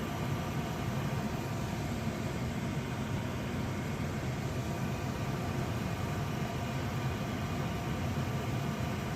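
HVAC unit running, a steady rush of moving air over a low hum.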